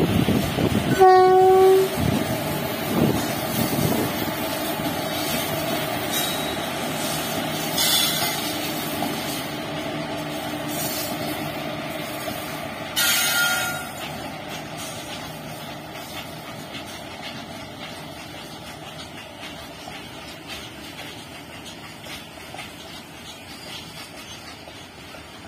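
Electric-hauled freight train of open wagons running past, its rumble slowly fading as the wagons go by. A locomotive horn sounds about a second in, with a second short horn blast about thirteen seconds in.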